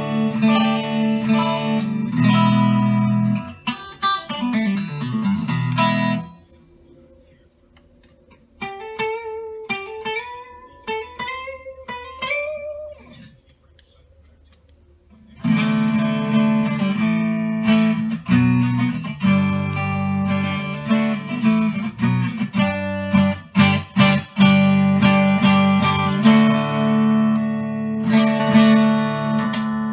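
1965 Fender Mustang electric guitar being played: strummed chords, then a brief pause. A short single-note line climbs in pitch with slides, and after another pause come more strummed chords with a few sharp, choked stops.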